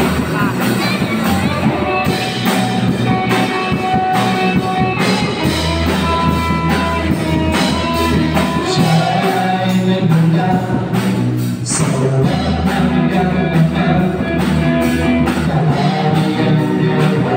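Live band playing a rock-style worship song on electric guitars and drum kit, with singing over it.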